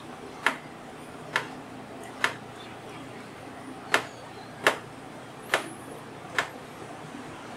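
Plastic developing tray knocking on the bench as it is rocked to agitate a print in developer: seven sharp clicks, a little more than one a second, with one pause partway through.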